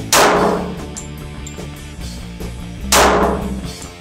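Two shots from a Glock 36 .45 ACP pistol, about three seconds apart, each echoing in the brick-vaulted cellar, with background music playing.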